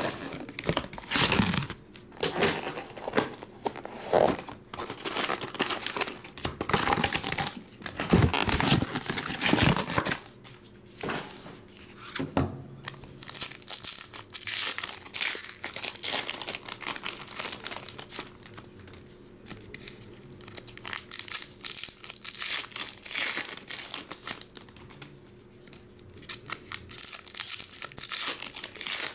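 Foil trading-card packs being torn open and crinkled by hand: a run of irregular crackling tears and rustles, loudest over the first ten seconds or so.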